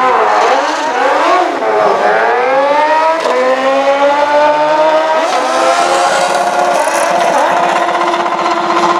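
Sport motorcycles launching off a drag strip start line and accelerating hard at full throttle. The engine pitch climbs, drops at each upshift (about two seconds in and again about five seconds in), then holds high.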